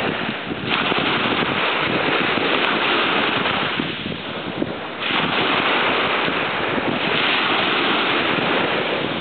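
Small waves breaking and washing up a sandy beach, with wind noise on the microphone. The rush grows louder about a second in and again about five seconds in.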